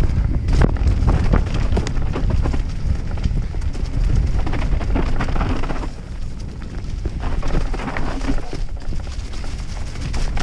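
Enduro mountain bike descending a rough dirt trail: wind rumble on the camera microphone under a running clatter of tyres, chain and frame, with frequent short knocks over roots and rocks.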